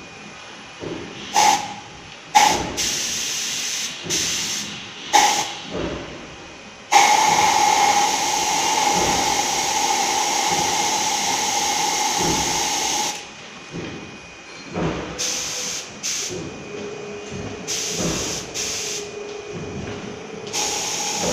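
Manual electrostatic spray gun spraying water-based paint: a hiss of air and paint in short blasts, then one long blast of about six seconds, then more short blasts, with a whistling tone in the hiss.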